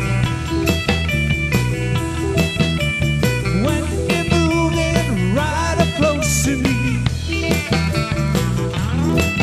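Rock and roll band playing: a steady drum beat and bass under guitar, with bending, sliding notes from about four seconds in.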